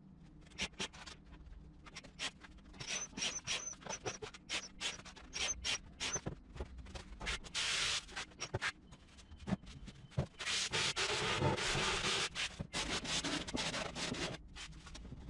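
Hands rubbing and scraping over the wooden panels of a dog whelping box. First comes a run of short, irregular strokes, then longer continuous rubbing from about ten seconds in.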